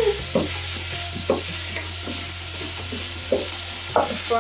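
Wooden spoons stirring potato-and-pea samosa filling and minced meat in frying pans, with a steady sizzle of frying and a few scrapes and knocks of the spoons against the pans.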